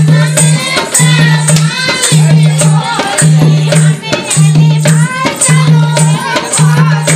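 North Indian village folk dance song (dehati naach geet): a voice sings over rattling, shaker-like percussion, with a deep bass note that pulses about once a second.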